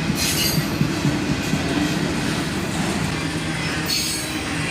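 Freight train cars rolling past, a steady rumble of steel wheels on rail. Brief high squeals come about a quarter second in and again near the end.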